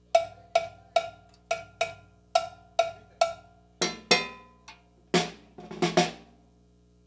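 Drums struck one at a time for a sound check: eight single hits on one higher-pitched drum at about two a second, then hits on lower-pitched drums ending in a short quick flurry.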